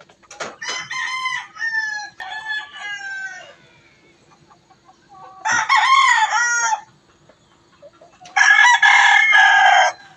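Gamecock roosters calling: a run of shorter calls in the first few seconds, then two loud crows, one about halfway through and one near the end.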